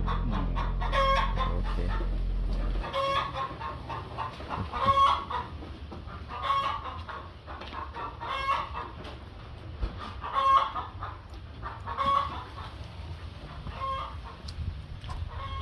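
Domestic chickens calling over and over, a call about every second and a half to two seconds. A low steady hum runs under the first three seconds and then stops.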